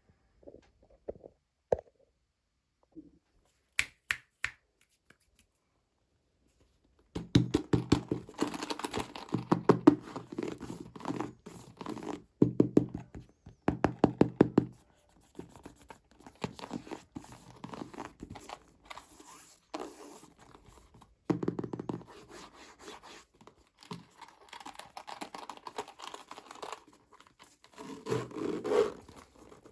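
Toy packaging being handled and opened by hand: a few scattered taps and clicks, then from about seven seconds in a long stretch of rapid crinkling, scratching and tearing.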